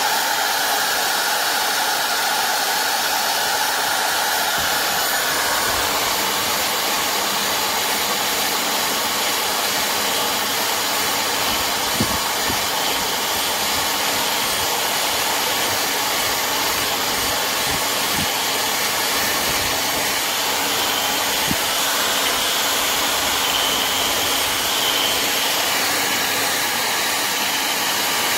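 Electric drill running continuously, spinning a twisted-wire tube brush against a rusty brake disc to scour off the rust and smooth the braking surface. A few light knocks in the second half.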